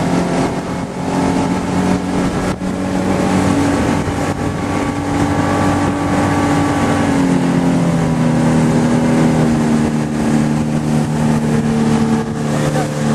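Outboard motor of an aluminium fishing boat running at speed, a steady engine drone whose pitch shifts slightly a couple of times, over a constant rush of wind and water.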